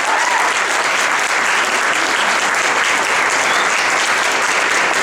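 Audience applause: dense, steady clapping.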